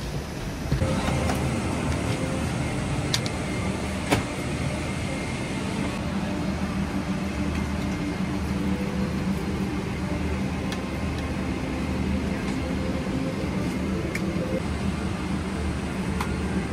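Steady airliner cabin noise inside a Boeing 777-300ER: a constant low hum and rush of air, stepping up in level about a second in. A few light clicks sound over it, the sharpest about four seconds in.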